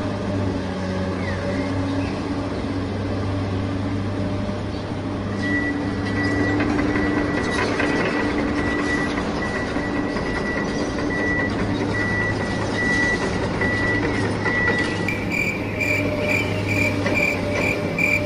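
Heavy-vehicle engine sound running steadily, with a reversing alarm beeping from about five seconds in, then a higher, quicker beeping near the end.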